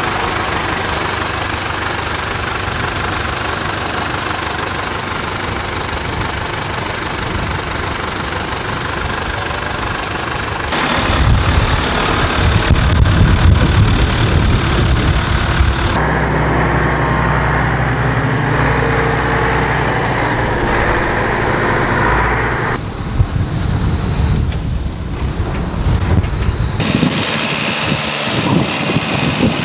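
An old Fendt tractor's diesel engine running, idling and then pulling away. It grows louder and heavier about eleven seconds in, and its tone shifts abruptly a few times between shots.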